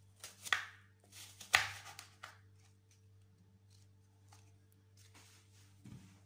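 Kitchen knife slicing through a cored apple to cut thin rings: a few crisp cuts in the first two seconds or so, the sharpest about a second and a half in, then only faint light taps.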